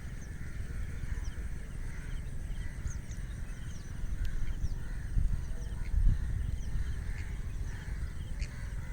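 Scattered short bird calls and chirps over a low, uneven rumble.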